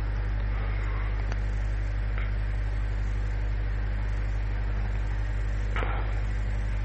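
Steady low electrical-sounding hum with background hiss from the recording, with a few faint clicks.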